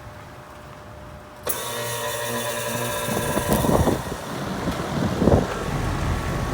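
2007 Rheem 1.5-ton condenser's reciprocating compressor starting up: it kicks on suddenly about a second and a half in and settles into a steady hum with several tones. This is a clean, normal start for a reciprocating compressor.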